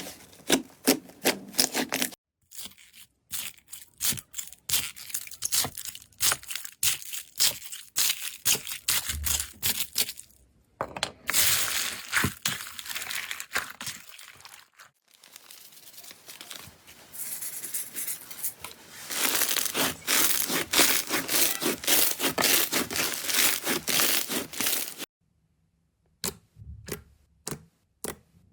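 Slime being squeezed, poked and pulled apart by hand, giving quick runs of crackling clicks and sticky tearing. The sound changes abruptly a few times, with a short silence about three-quarters of the way in.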